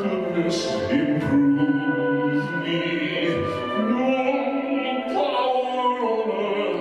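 A man singing into a handheld microphone in a full stage voice, holding long notes that slide from one pitch to the next.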